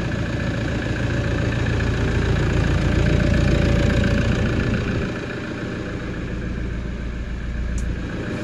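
Toyota 1KD-FTV 3.0-litre four-cylinder common-rail turbodiesel idling steadily on one of its first runs after being swapped into the truck. It is louder for a few seconds, then quieter about five seconds in.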